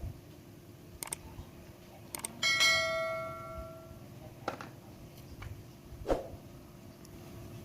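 Metal cookware struck once, ringing for about a second before dying away, about two and a half seconds in. A few light knocks and clicks of kitchen utensils come before and after it.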